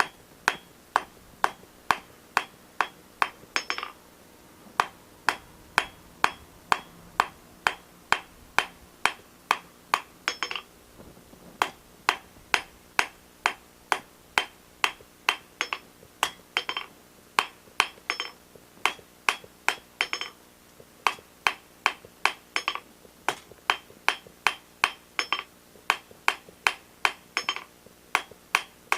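Hand hammer striking steel on an anvil in steady runs of blows, about two to three a second, with ringing after the strikes and a few short pauses between runs: forging, rounding off the corners of a steel piece.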